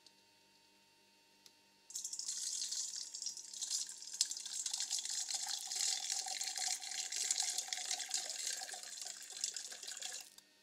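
Water poured from a glass bowl into a stainless steel bowl, splashing against the metal. The pour starts about two seconds in and stops abruptly near the end.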